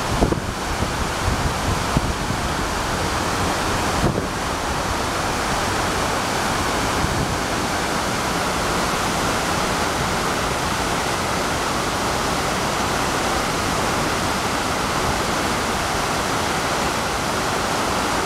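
Steady rushing of the man-made waterfalls pouring down the walls of the 9/11 Memorial's North Tower reflecting pool. Wind bumps on the microphone in the first couple of seconds.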